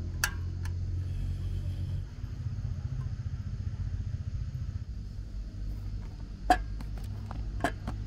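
Portable butane cassette stove burning under a pan with a steady low rumble. A light click comes just after the start, and two sharp knocks come in the second half, the first the louder.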